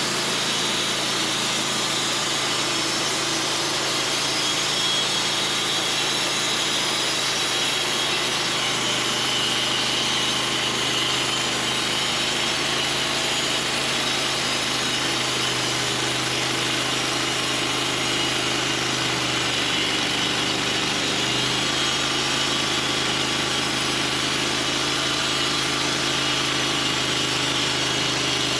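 Engine-driven portable sawmill running steadily under load as its blade saws through a locust log.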